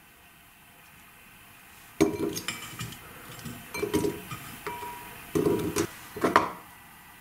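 Clinks and clattering knocks from the stainless steel head of an electric meat grinder being handled while leftover pieces are picked out by hand, starting about two seconds in, some knocks ringing briefly. The grinder's motor is not running.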